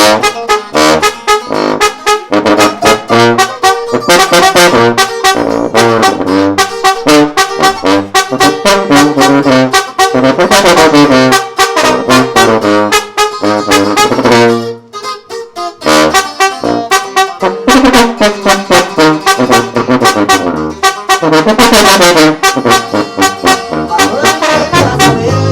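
Regional Mexican band playing an instrumental intro led by tuba and saxor (alto horn), with a fast, even beat. The music drops out briefly about fifteen seconds in, then the band comes back in.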